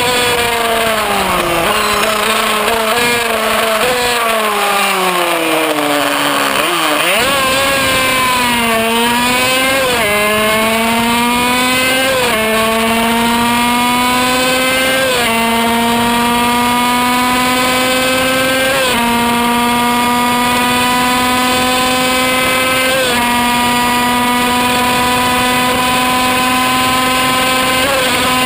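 Kreidler Van Veen 50cc single-cylinder two-stroke racing engine at high revs, heard from on board: for about seven seconds the engine speed falls off, then it picks up hard and shifts up through its six-speed gearbox, the pitch climbing in each gear and dropping sharply at every change, the changes coming further apart as speed builds.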